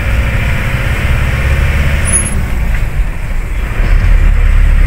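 Engine and road noise heard from inside the cabin of a car on the move: a steady low rumble with tyre hiss.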